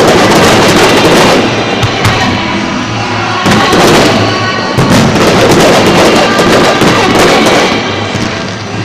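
Fireworks going off in a dense, continuous run of bangs and crackling from aerial shells, easing off a little near the end, with music playing underneath.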